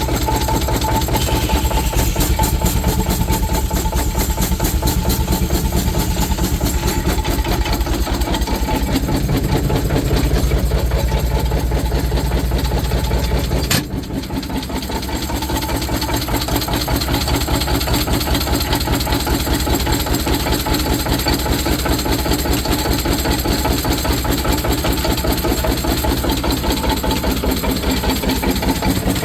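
Steam engine running a sawmill, with a rapid, even beat. About halfway through the low rumble drops out suddenly and the level then builds back up.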